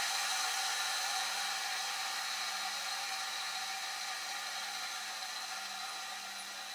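A small electric kitchen appliance running steadily: an even hiss over a low hum, slowly getting quieter.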